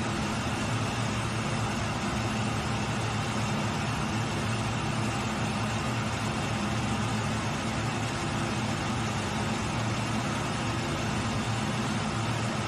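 Steady jet engine and airflow noise inside a fighter jet's cockpit in flight, an even rushing hum that does not change.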